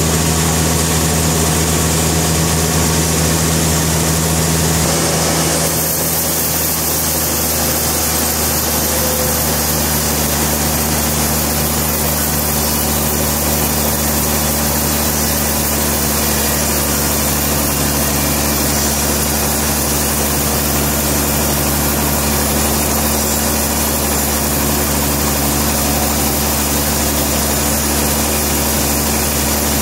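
Sawmill engine running steadily with an even low hum, its sound changing slightly about five seconds in.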